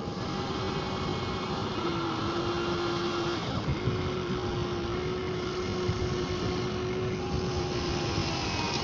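Small electric motor and gears of a radio-controlled model vehicle running with a steady whine. The whine drops a little in pitch about two seconds in and breaks off briefly at about three and a half seconds before carrying on.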